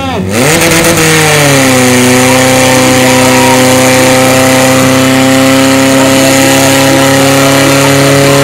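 Portable fire pump's engine revving up hard about half a second in, then running at full speed steadily as it pumps water out to the hose lines.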